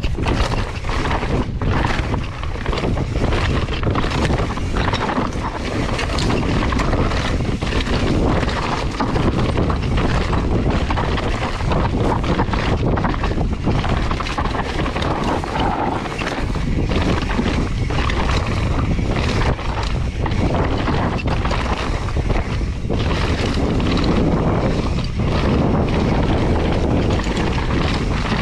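Wind rushing over the action camera's microphone during a fast mountain-bike descent, with the tyres crunching over loose dirt and rock and the bike rattling on constant small knocks. It is loud and steady throughout.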